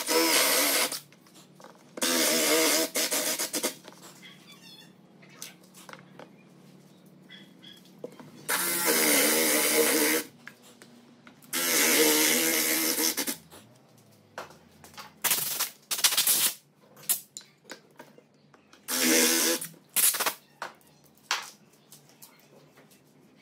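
Makita cordless drill boring 35 mm concealed-hinge cup holes in a wooden cabinet door with a Forstner-type bit, running in several bursts of one to two seconds with a steady motor whine and short pauses between.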